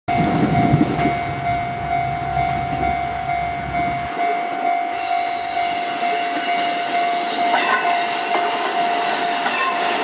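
Level crossing alarm sounding a steady, pulsing tone while a KiHa 11 series diesel railcar set rolls past close by. The railcar's low diesel rumble stops about four seconds in, then wheel squeal and hiss from the passing cars rise, with a few wheel clicks near the end.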